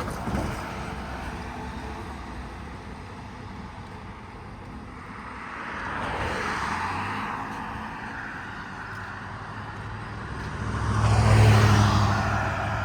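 Road traffic passing by: one vehicle swells and fades about six seconds in, then a louder one goes by near the end with a low engine drone.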